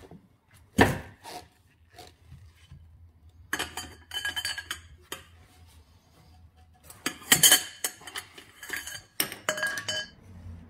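Scattered metallic clinks and taps, several with a short ring, from a wrench working the oxygen sensor loose from a steel catalytic-converter downpipe and being set down.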